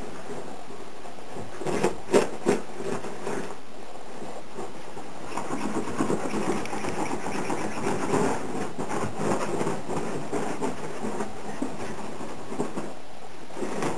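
Scottish terriers scrabbling and pawing at a duvet on a bed: a rapid scratching rustle of claws on fabric, with a few knocks about two seconds in and steady fast scrabbling from about five seconds in.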